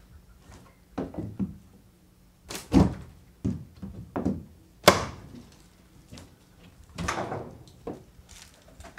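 Weathered wooden door being worked open: a string of knocks and thuds, the sharpest and loudest about five seconds in, then a longer scrape near the end as it swings.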